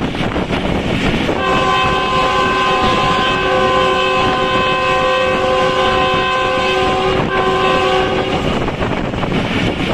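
Train's locomotive horn sounding a long multi-tone blast that starts about a second and a half in, breaks briefly and ends near the end, over the steady rushing and rumble of the moving passenger coach.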